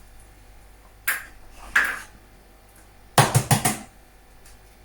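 Eggs knocked against the rim of a mixing bowl to crack them: a single tap about a second in, another shortly after, then a quick run of four louder knocks a little after three seconds in.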